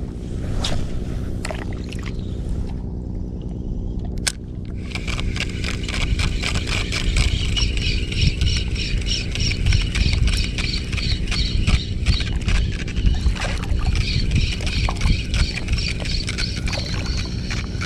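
Daiwa Crossfire LT 1000 spinning reel being cranked to retrieve a cast lure: one sharp click about four seconds in, then a rapid, fine, even ticking from the reel's turning gears. A steady low rumble runs underneath.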